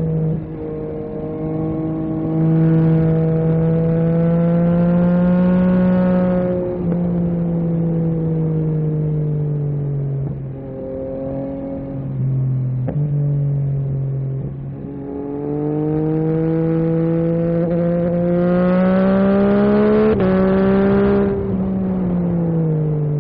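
Yamaha MT-09 SP's three-cylinder engine through an Akrapovic carbon exhaust, riding on the road: twice it pulls hard with the pitch climbing for several seconds, then drops back at a gear change or roll-off, with lighter running in between.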